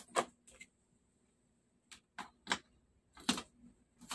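A handful of faint, irregular clicks and taps from handling a digital multimeter and its test probes on a TV's circuit board, the loudest about three seconds in.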